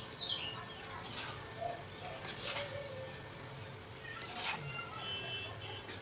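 Gulab jamun balls frying in hot oil in an iron kadhai, a faint sizzle, with a slotted spoon scraping through the oil a few times.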